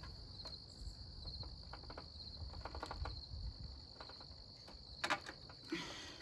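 Crickets chirping in a steady, evenly pulsed trill, with a few faint clicks and taps of handling about three and five seconds in.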